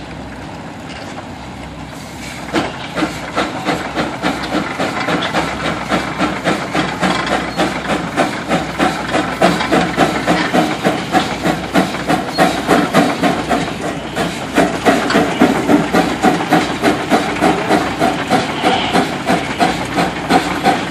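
112-year-old steam traction engine pulling a weighted drag: a steady hiss of steam for the first couple of seconds, then the exhaust chuffs in a regular rhythm of about two to three beats a second as it works under load.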